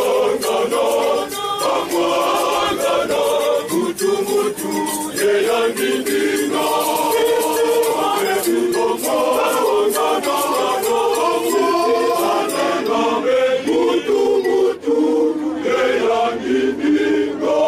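A choir of many voices singing a gospel song together, with hand clapping and a shaker keeping the beat.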